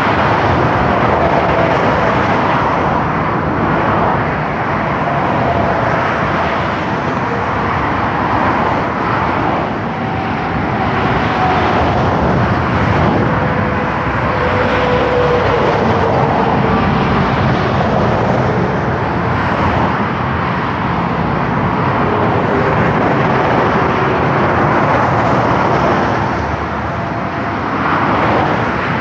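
Fast multi-lane motorway traffic: a continuous rush of tyres and engines that swells and eases as vehicles pass, with faint whines that drop in pitch as each one goes by.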